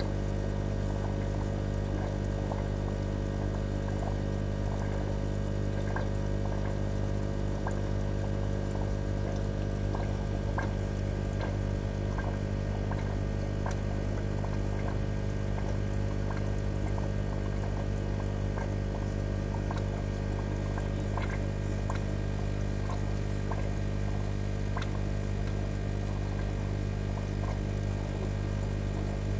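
Aquarium water trickling and bubbling over a steady low hum, with small irregular pops throughout.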